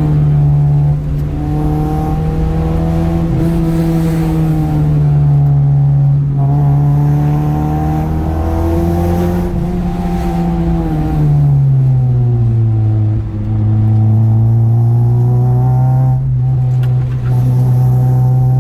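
Car engine and road rumble heard from inside the cabin as the car is driven through winding bends, the engine's pitch rising and falling with the throttle, then easing to a lower steady pitch about twelve seconds in.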